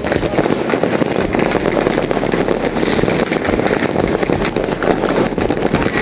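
Many fireworks and firecrackers going off at once: a dense, unbroken crackle of overlapping bangs and pops.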